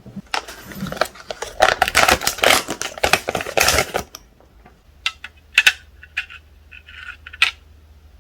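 Plastic packaging of a phone case crinkling and rustling as it is opened, followed by a handful of light plastic clicks and taps.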